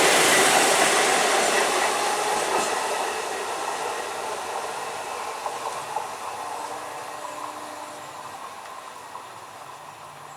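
Medha electric multiple-unit local train pulling away along the track, its wheel and rail noise fading steadily as it recedes.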